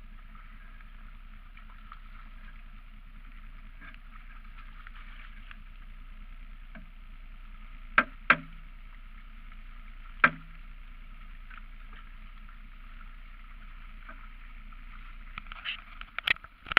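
Mud motor idling steadily, with sharp knocks twice in quick succession about halfway in and once more two seconds later. A cluster of bumps and rubbing comes near the end as a hand closes over the camera.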